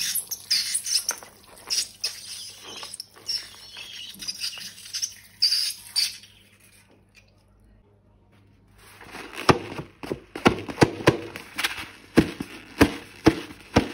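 Close-up handling sounds of slime being squeezed and worked: about six seconds of dense crackling and rustling, a short break, then a run of sharp sticky clicks and pops.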